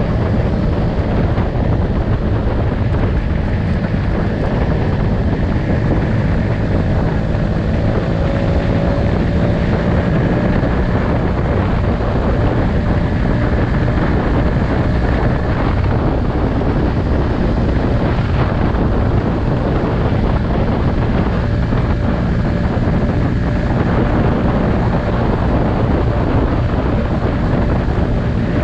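Wind buffeting the microphone on a Honda scooter ridden at about 60–70 km/h, over the steady hum of the scooter's engine and tyres on the road.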